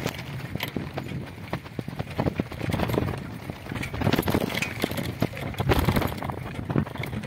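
Bicycle ridden over a rough dirt track: tyres on grit and the frame rattling in dense, irregular knocks over the bumps.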